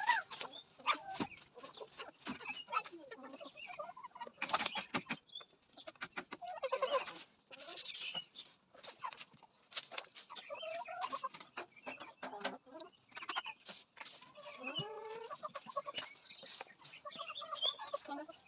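Kienyeji (free-range indigenous) chickens clucking on and off, with scattered sharp clicks and knocks among them.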